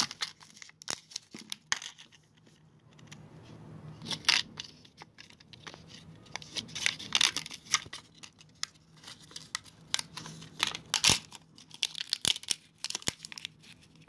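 Surprise toy egg being opened by hand: its packaging is torn and crinkled, with many short crackles and clicks and louder rustling bursts about four, seven and eleven seconds in.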